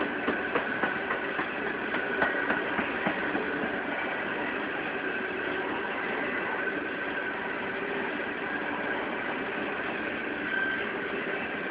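BNSF coal hopper cars rolling past: a steady rumble of steel wheels on rail, with a faint steady high ring over it. A quick run of clicks and clanks comes in the first three seconds or so as wheels pass over the track.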